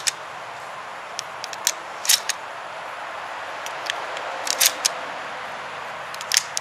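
Buckshot shells being pushed one by one into the tube magazine of a VSA-ST G2 semi-automatic shotgun, giving a series of sharp clicks spaced out over several seconds.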